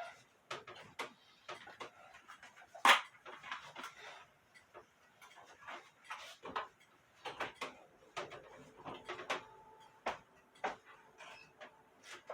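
Scattered small clicks and knocks of clock parts and objects being handled, with one much louder knock about three seconds in.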